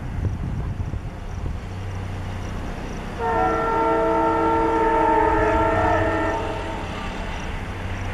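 Diesel locomotive running with a low engine rumble. About three seconds in, its horn sounds one long chord-like blast lasting about three seconds.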